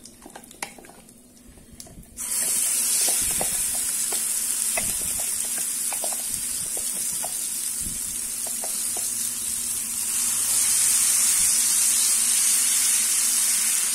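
Ground mint-coriander paste sizzling hard in hot sesame oil with a mustard-seed and dal tempering: a steady frying hiss that starts suddenly about two seconds in. Light scrapes and taps come from the spoon and the wooden spatula stirring the paste.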